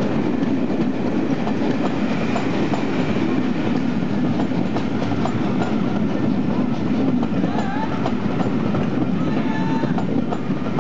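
Maroon passenger coaches passing at speed: a steady, loud rumble of wheels on the rails, with faint clicks running through it.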